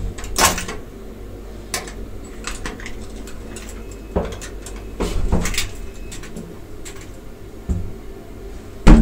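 Elevator car in motion: a steady low hum with scattered clicks and knocks, the loudest a thump near the end.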